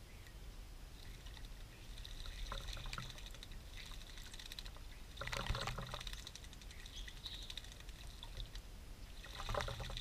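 European starlings bathing in a birdbath, splashing water in repeated bursts, with the biggest splash about halfway through and another near the end.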